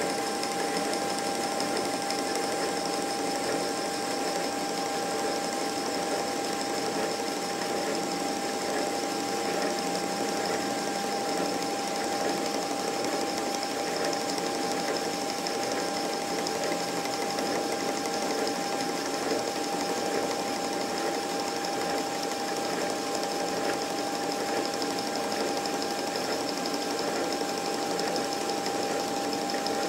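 Metal lathe running steadily at reduced speed while a twist drill bores a pilot hole in a bearing block: an even mechanical whirr with a constant steady tone over it.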